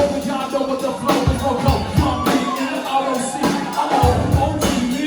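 Music with a steady drum beat and a singing voice.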